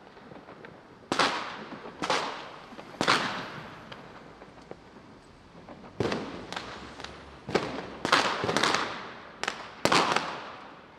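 War sound effect: a series of sharp bangs like distant gunfire, each trailing off in a long echo. Three come about a second apart, then after a short lull a faster irregular cluster follows.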